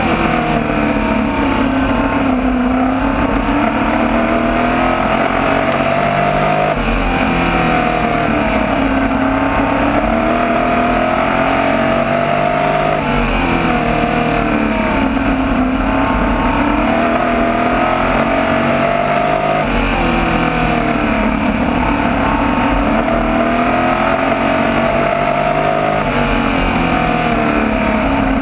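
Onboard sound of a small open-wheel sprint race car's engine running hard at high revs, lap after lap. The pitch climbs and falls about every three seconds as the driver lifts for each turn and gets back on the throttle for the straight.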